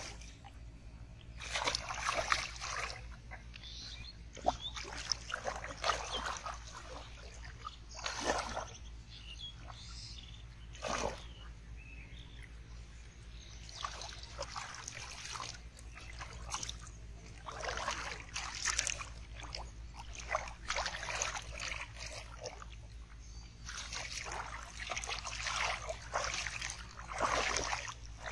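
Hands splashing and sloshing through shallow water in irregular bursts as fish are grabbed by hand, with pauses between the splashes.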